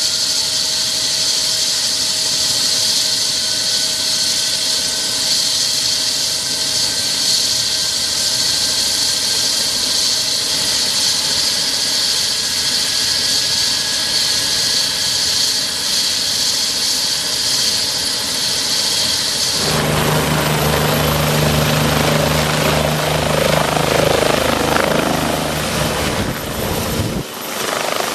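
Bell 429 helicopter running on the ground with its rotors turning, its turbines giving a steady high whine. About twenty seconds in, the sound switches abruptly to a deeper, pulsing beat of the rotor blades as the helicopter takes off into a hover.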